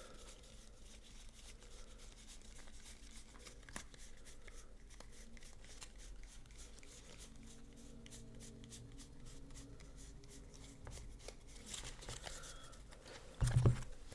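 Yu-Gi-Oh trading cards being handled and flipped through, with soft card clicks and slides, a brief rustle, and one louder thump near the end.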